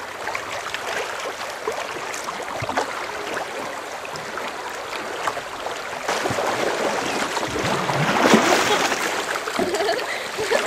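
Shallow river current rushing and gurgling over riffles around a kayak's bow, growing louder about halfway through.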